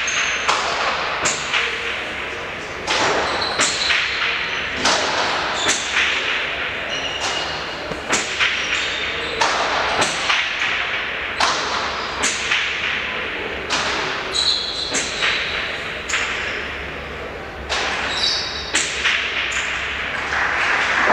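Remonte rally: a hard pelota ball cracks against the fronton walls and floor about once a second, each hit echoing in the big hall. A few short high squeaks come between the hits.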